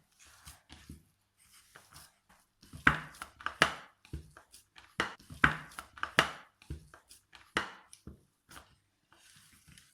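Irregular knocks and taps of a plate and hands as warm cashew-sugar dough for kaju katli is kneaded by hand, the plate shifting on the counter; the knocks come thickest and loudest through the middle.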